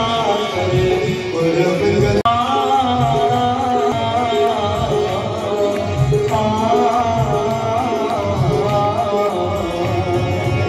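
Devotional Ganga aarti hymn, a voice singing a wavering melody over a steady drum beat. The sound breaks off for an instant about two seconds in.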